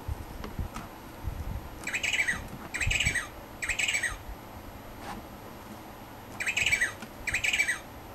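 Recorded penguin calls played from a children's sound book's small speaker: three short squawks about a second apart, then after a pause three more. A few soft knocks from the board-book flap being handled come first.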